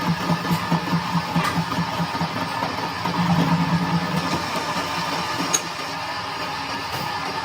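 Workshop machine running with a low hum that pulses about five times a second, turning steadier about halfway through, with a single sharp click near the end.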